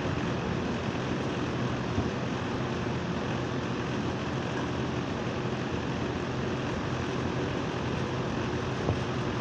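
Split-type air conditioner's outdoor unit running steadily: an even hum from the compressor under the fan's rushing noise, with a couple of faint clicks. The replacement compressor is said to have a failing bearing, overheating and shutting down.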